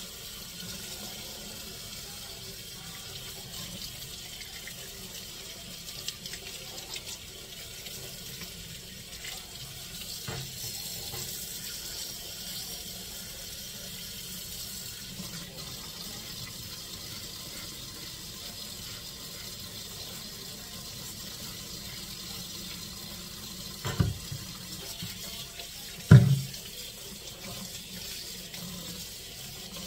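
Tap water running steadily into a sink, with two sharp knocks about two seconds apart near the end.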